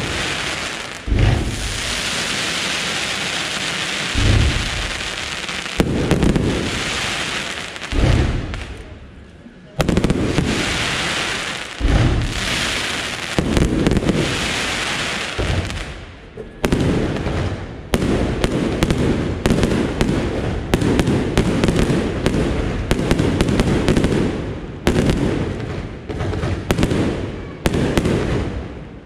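Aerial fireworks display: shells burst with loud bangs, each followed by a long crackling hiss of glittering stars. From about halfway through, a rapid run of sharp reports follows, several a second.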